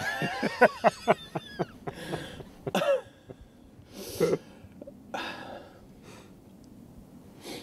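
A man's short bursts of laughter, then a few coughs and sharp breaths.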